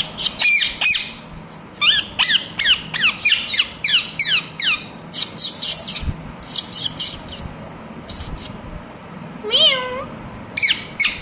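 Indian ringneck parakeet giving quick runs of short, shrill calls, each sweeping down in pitch. The calls come about three a second for the first several seconds, break off, and return as a few calls near the end.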